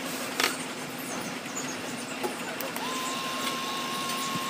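Small DC motor of a handmade model boat switched on about two-thirds of the way in, running with a steady high whine. A sharp click comes about half a second in.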